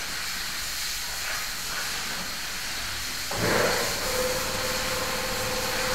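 Steady hiss. About three seconds in, a machine starts up and runs on with a low rumble and a steady humming tone.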